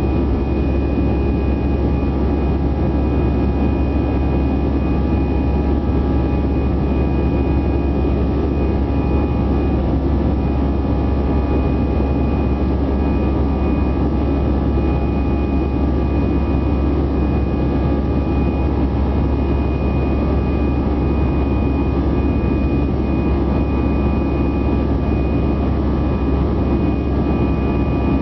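Steady cabin noise of an Airbus A320-200 in its climb after takeoff, heard from inside the cabin: continuous jet-engine and airflow noise, heaviest in the low end, with a faint steady whine on top.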